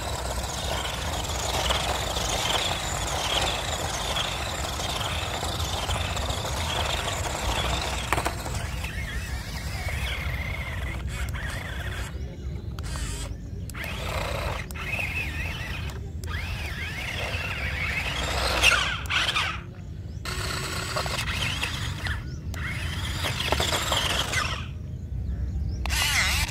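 Toy RC stunt car's electric drive motors and gears whining, the pitch wavering up and down with the throttle, in a run of short clips with abrupt cuts in the second half.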